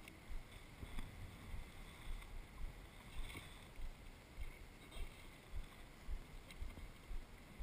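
Water slapping against the underside of a surfboard towed slowly on calm sea, with soft low thuds about twice a second.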